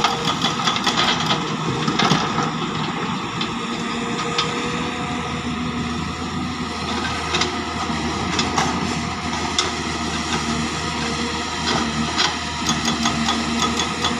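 Excavator diesel engines running steadily, with rock clattering and knocking as a bucketful of stone is dumped into a dump truck's steel bed and the machines work the pile.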